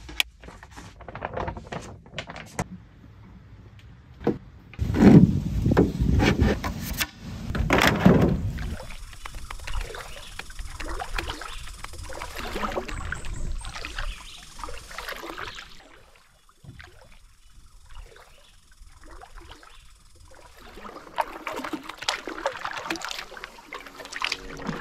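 Canoe paddling on calm water: paddle strokes dipping and pulling, with water trickling off the blade and lapping at the hull. About five seconds in there are a few seconds of loud low rumbling and knocks, and near the end a run of quicker, splashier strokes.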